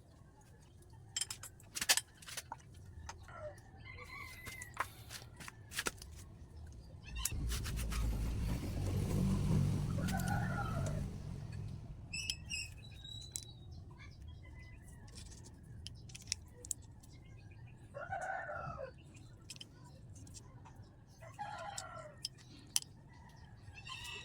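Scattered sharp clicks and knocks, a swell of low rumbling noise peaking about ten seconds in, and several short calls from a rooster.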